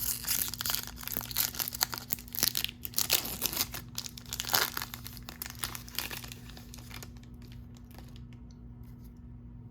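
Foil wrapper of a baseball card pack being torn open and crinkled for about seven seconds, then quieter with a few faint clicks as the cards are handled.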